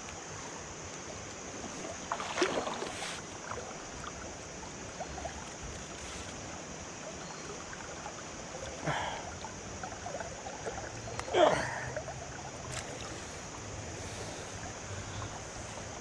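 Creek current running steadily around a wader, with three short splashes a couple of seconds, about nine seconds and nearly twelve seconds in, the last the loudest, as a small hooked smallmouth bass is played to hand.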